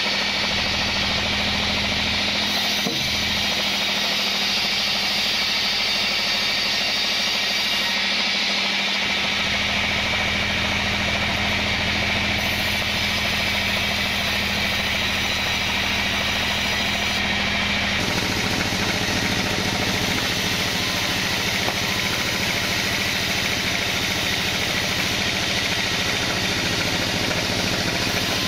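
Band sawmill running steadily, its blade sawing lengthwise through kenanga logs into planks. The tone shifts abruptly twice.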